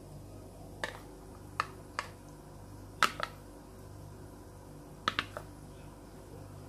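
A metal spoon knocking and scraping against a bowl as food is scooped out, in short sharp clicks: several single taps and two quick clusters. A low steady hum sits underneath.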